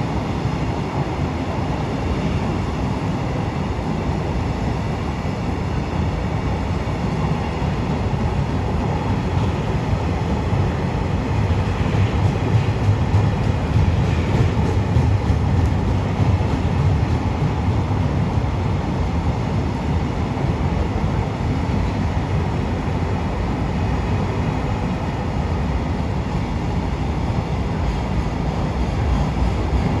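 Freight train rolling past, a steady rumble of wheels on rail that swells a little about a third of the way in.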